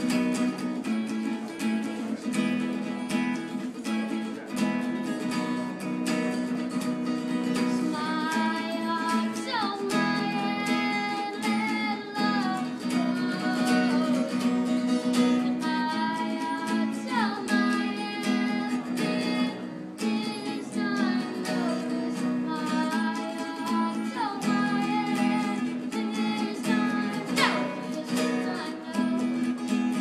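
Acoustic guitar strummed steadily in chords, with a boy's singing voice coming in about eight seconds in and carrying on over the guitar.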